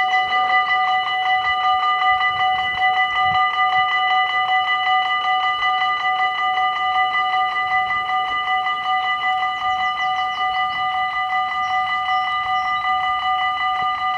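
Warning bells of a Dutch automatic half-barrier (AHOB) level crossing ringing in a rapid, even, steady clang, sounding the closing of the crossing while the barriers lower.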